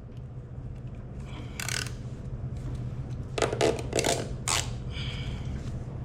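A nylon zip tie being pulled tight through its ratchet head in a few short zips, over a steady low hum.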